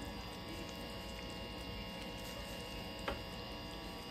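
Steady low electrical hum in a kitchen, with a single sharp click about three seconds in as a gas stove's burner knob is turned.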